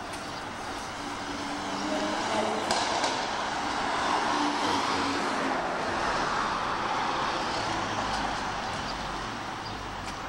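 City street traffic: a car passes close by, loudest around the middle, over a steady hum of traffic, with a low rumble near the end.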